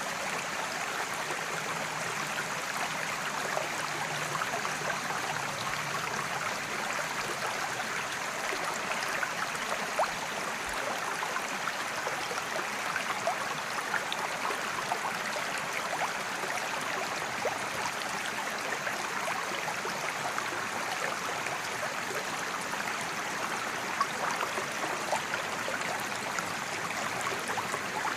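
Mountain creek running over rocks: a steady rushing babble with small splashes and gurgles throughout.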